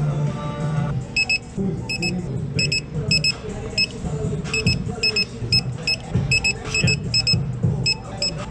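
Short high electronic beeps, often in quick pairs, repeating about twice a second from about a second in, over background music.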